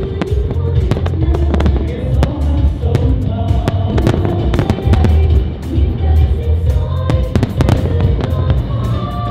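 Fireworks display: a rapid, irregular string of bangs and crackling bursts, several a second, with booming low rumble, heard over music playing at the same time.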